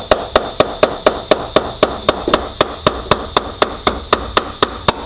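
Hammer tapping rapidly and evenly on metal, about four blows a second, to drive the front pump out of a Ford 4R75W automatic transmission case.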